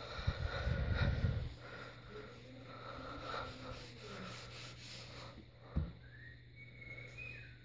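Scrub sponge rubbing over a painted wall in rough rustling strokes, with the phone's microphone being handled, a heavy rumble in the first second or so and a single thump near the end. A low steady hum runs underneath.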